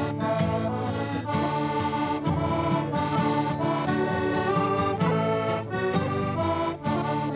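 Accordion playing a traditional Irish tune, melody notes changing over held bass chords.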